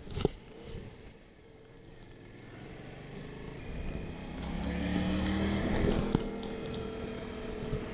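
Yamaha Tracer 700's parallel-twin engine heard on board while riding: quiet on a light throttle at first, then pulling harder from about two seconds in and growing louder up to about six seconds before easing back. A sharp knock sounds right at the start.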